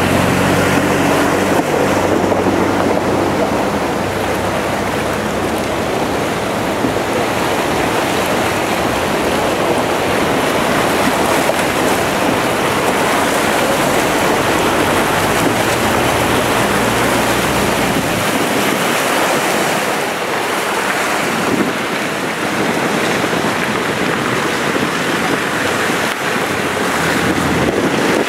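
Floodwater from a torrential downpour rushing down a street, a loud, steady wash of water noise. Vehicle engines are heard under it, with cars driving through the runoff; the engine hum fades about two-thirds of the way through.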